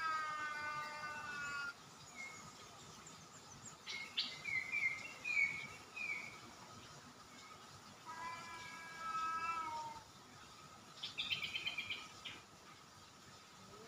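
Orange tabby cat meowing in long, drawn-out calls, the first trailing off about two seconds in and a second one, falling slightly in pitch, about eight seconds in. Between them and near the end, small birds chirp and chatter in quick runs of notes.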